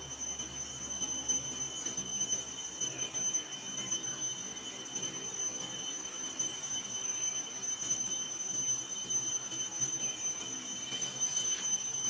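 A steady high-pitched whine held on one pitch, with a fainter tone above it, over a faint low background murmur.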